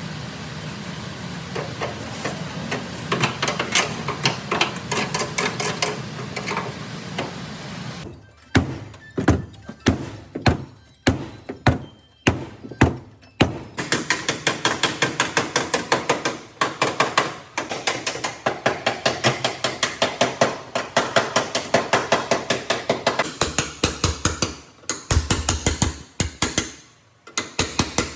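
Hammer blows on car body sheet metal while a dented back panel is beaten out. Slow, heavy single blows about a third of the way in give way to rapid, lighter taps, about four or five a second.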